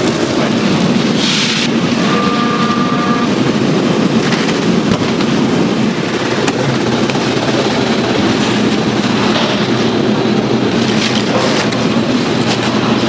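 Steady, loud noise of automated fried rice factory machinery running, with a brief high tone about two seconds in.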